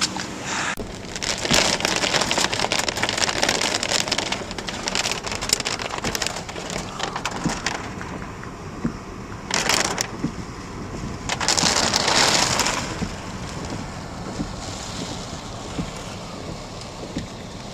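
Heavy rain pelting a car, many small hits at once, coming in waves: heaviest from about a second in to five seconds, then two shorter surges around ten and twelve seconds.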